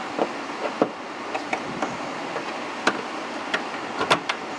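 Irregular clicks and light knocks from parts of a car's fuel pump assembly being fitted by hand, about half a dozen, the sharpest near the end. Under them runs the steady noise of a shop fan.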